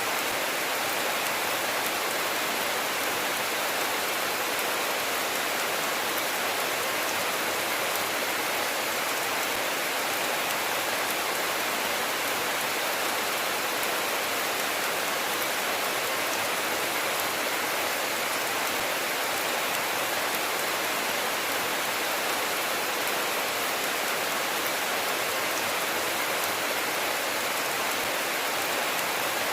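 Steady rainfall, an even hiss of many drops with no thunder.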